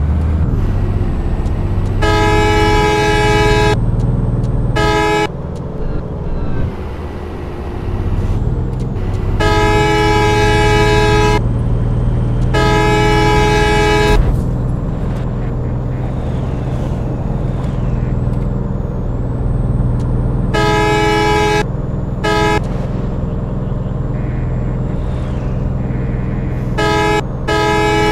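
Vehicle horn honking in loud multi-tone blasts, mostly in pairs, the longest nearly two seconds, about eight in all, over a steady hum of engine and road noise.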